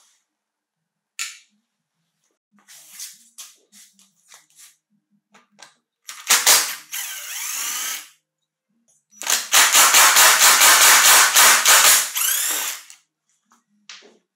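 Cordless impact driver with a long socket extension undoing a bolt on a chainsaw engine's crankcase, rattling in two runs: a short one about six seconds in and a longer, steady one of about three and a half seconds from about nine seconds in. A few light clicks and taps of parts being handled come before.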